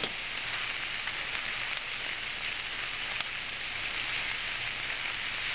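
Capsicum, zucchini and Chinese cabbage sizzling in a hot stainless steel pot: a steady hiss with faint crackles.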